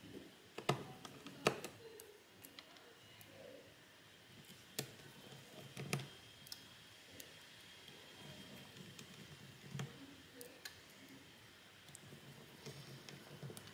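A small screwdriver driving the little screws back into a Samsung Galaxy A73 5G's frame: scattered light clicks and taps of the tool and screws, the sharpest about a second in.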